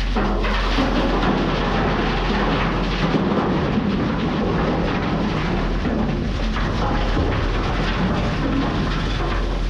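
A heavy diesel truck engine running under a continuous rumbling, crunching rush of loose rock: a load of slate fill sliding off a dump truck's bed.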